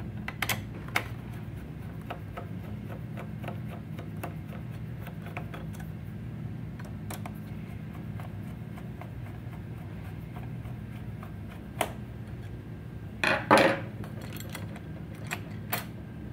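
Screwdriver working screws out of a metal-and-plastic PC stand plate: scattered small clicks and scrapes of the tool on the screws, with a louder clatter about thirteen seconds in, over a steady low hum.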